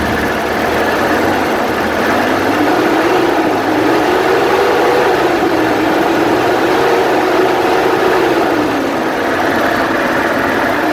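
Toyota Land Cruiser diesel engine running on a freshly rebuilt injection pump, revved lightly up and back down twice, then settling to idle. It runs very smoothly.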